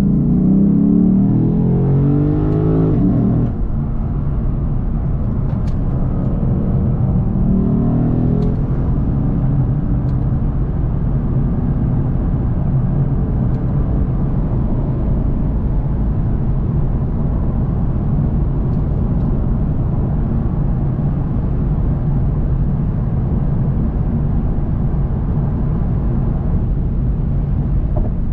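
Lexus RC F Track Edition's 5.0-litre naturally aspirated V8 heard from inside the cabin, revving up under acceleration, with a drop in revs at a gear change about three seconds in and a second climb that ends near the eight-second mark. It then settles into a steady drone at motorway cruising speed, mixed with road and tyre noise.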